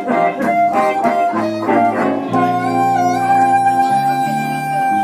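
Live blues band of amplified harmonica, electric guitar and electric bass playing. Quick choppy notes for about the first two seconds, then one long held note that bends up slightly over a walking bass line.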